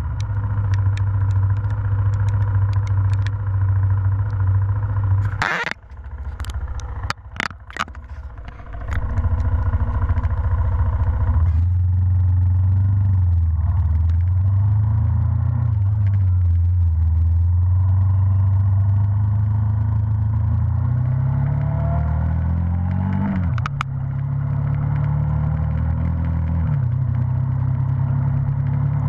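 Motorcycle engine running at a steady drone, heard from a camera mounted on the bike. It goes briefly quieter with a few sharp clicks about six to nine seconds in, and near the end its pitch climbs and then drops abruptly.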